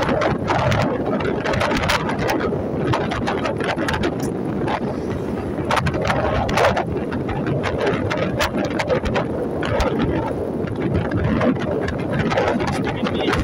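Wind buffeting the microphone over a moving vehicle's engine and road noise while riding at speed, a steady rushing with frequent crackles.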